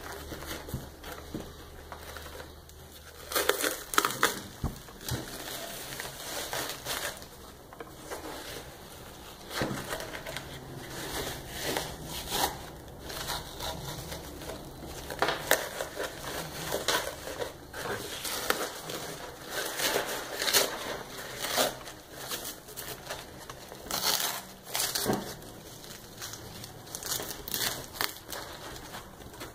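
Fabric cover of a Highcom 4SAS7 ceramic level IV armor plate being peeled and torn away by hand, with crunching and crackling of the cracked ceramic underneath, in irregular bursts.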